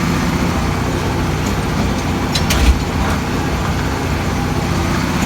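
Tractor engine running steadily under way, with a few short knocks or rattles a little past two seconds in.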